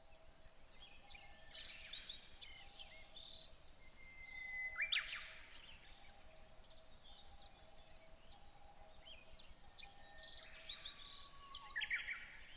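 Several birds chirping and singing together, a busy chorus of short, quick, mostly falling notes, with one louder call about five seconds in.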